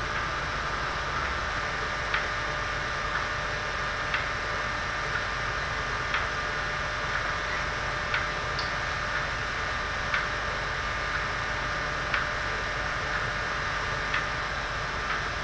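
A clock ticking about once a second, the ticks stronger and weaker in turn, over a steady hiss and hum.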